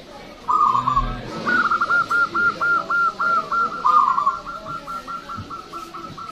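Zebra dove (local perkutut) cooing: a short burst of notes, then a run of evenly spaced coos at about four a second. About four seconds in comes a second burst that runs into faster, fainter repeated notes.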